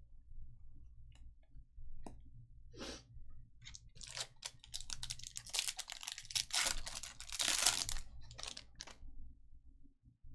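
A foil trading-card pack torn open and its wrapper crinkled, with a dense run of crackling rips over several seconds, loudest past the middle. Before it come a few light clicks of cards being handled.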